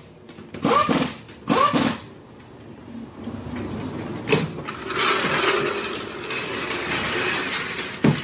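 Pneumatic impact wrench rattling as the lug nuts are run on, a sustained buzzing clatter that grows louder about halfway through. Two short bits of voice come before it.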